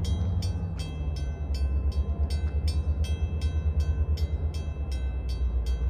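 A railroad bell ringing steadily, about three strikes a second, over the low rumble of an approaching train.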